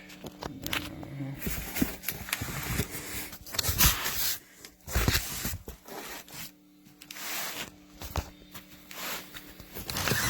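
Rustling, crinkling and scraping of box packaging being handled and pulled open, with a couple of louder bumps near the middle.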